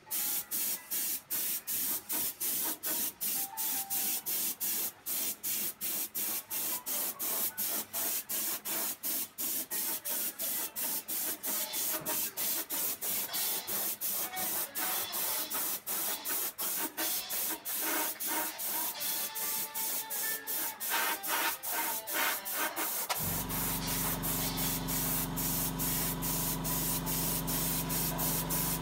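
Gravity-feed spray gun hissing as paint is sprayed onto a bicycle frame, the hiss broken by quick, regular dips about three times a second. About two-thirds of the way in, a low steady hum joins it.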